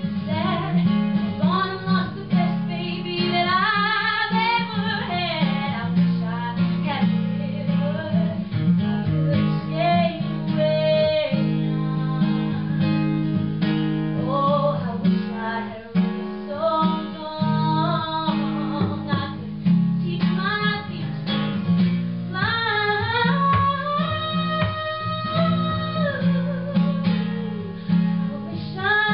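A woman singing with acoustic guitar accompaniment, live, holding a long note near the end.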